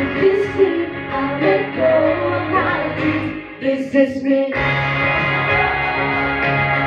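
A song: singing over instrumental accompaniment. About four and a half seconds in, the voice drops out, leaving steady held instrumental chords.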